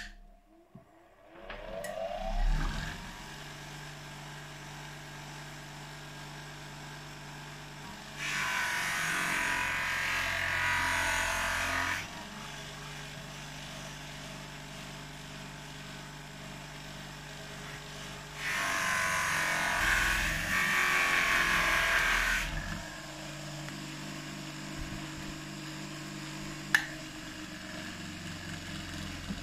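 Einhell TH-BG 150 bench grinder switched on, its motor spinning up with a rising whine and then running with a steady hum. Twice, for about four seconds each, a louder rushing noise as a chrome oil filler cap is pressed against the spinning cloth buffing wheel to polish it; one sharp click near the end.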